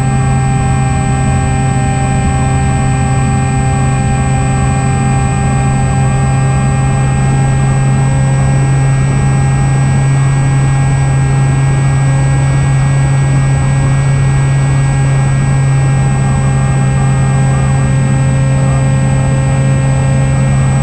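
Opterra flying wing's electric motor and propeller running at steady throttle in flight: a loud, steady drone that holds one pitch, with a ladder of higher tones above it.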